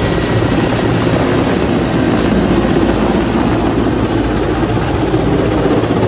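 Military helicopter running: a steady, loud noise of rotor and engines that carries on without a break.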